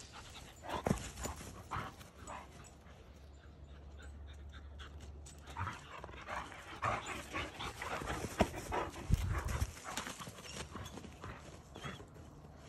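An Irish wolfhound and a German shepherd playing together: scattered short dog sounds, panting and running footfalls on grass, busiest around the middle.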